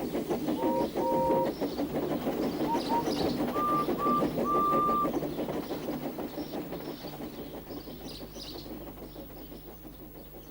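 Steam locomotive chuffing rapidly, with several short whistle toots in the first half, the chuffing fading away toward the end.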